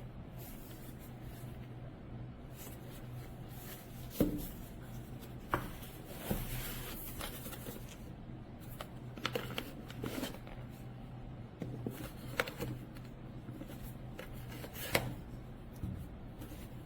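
Objects being handled close to the microphone: light rubbing with scattered soft knocks and clicks, the sharpest about four seconds in, over a steady low hum.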